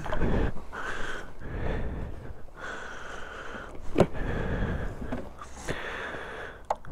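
Clothing rustle and handling noise as a rider climbs onto a parked motorcycle, coming and going in patches, with one sharp knock about four seconds in.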